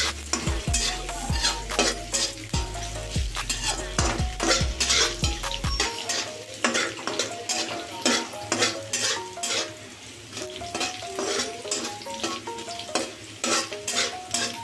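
Green chilli, ginger, cumin and mustard seeds sizzling in a little oil in a steel kadai as they are roasted, with a steel spatula scraping and tapping against the pan many times as they are stirred.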